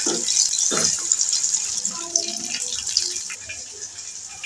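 Chicken pieces deep-frying in hot oil, a steady sizzle, with a few knocks from a metal spoon against the pot; the sizzle fades about three seconds in.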